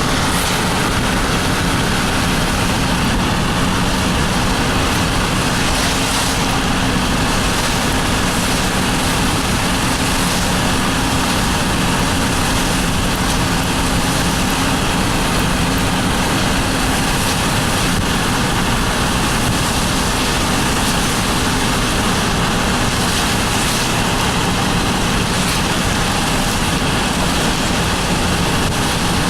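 Steady road and engine noise of a car driving, heard from inside the cabin, with a faint steady engine hum under it.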